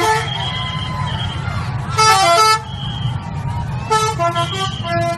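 Bus 'telolet' musical horn playing quick melodic runs of short stepped notes, once about two seconds in and again from about four seconds in, over a steady low rumble.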